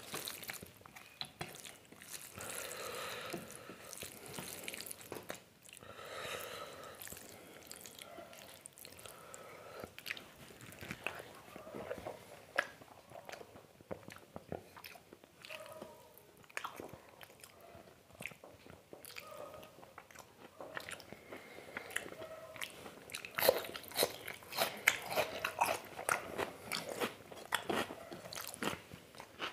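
Close-miked eating of mutton curry and rice: wet chewing and mouth smacking with many small clicks. Near the end the clicks grow louder and denser as sticky fingers mix rice and gravy on the plate.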